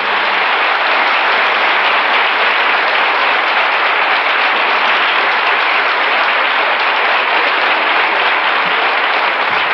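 Audience applauding: many hands clapping in a steady, dense stream with no music under it.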